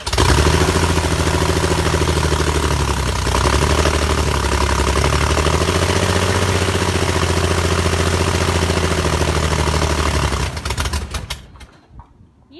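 Jabiru 3300 six-cylinder air-cooled aero engine running on its first start after a rebuild, exhausting through twin three-into-one straight-through pipes with an augmenter outlet, the propeller turning. It runs steadily for about ten seconds, then is shut down and dies away as the propeller coasts to a stop.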